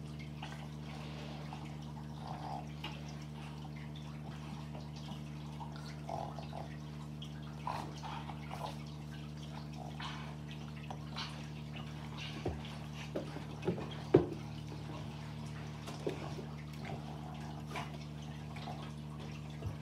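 Scattered soft clicks and light knocks as a small dog plays with a person on carpet, with a sharper knock about fourteen seconds in, over a steady low hum.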